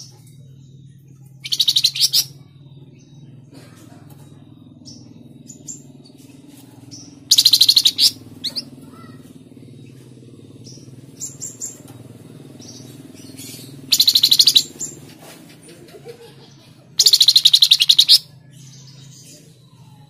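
A flamboyan (tledekan jati) songbird singing four loud, fast trills of rapidly repeated high notes, each about a second long and a few seconds apart, with a few soft chirps between them.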